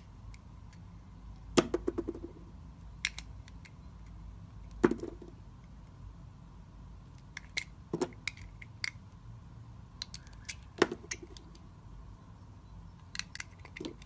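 A snap-off utility knife blade cutting into a bar of soap: four sharp cracks about three seconds apart, each with a short low ring after it, among lighter ticks and crackles.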